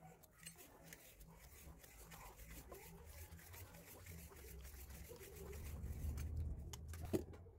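Plastic plumbing parts being handled: a blue plastic cap rubs and clicks against a chrome fitting, with a low rumble growing and one sharp click near the end.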